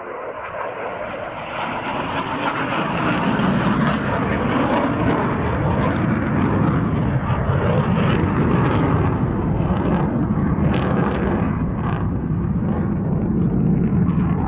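Jet aircraft in flight, its engine noise growing louder over the first three seconds and then holding steady.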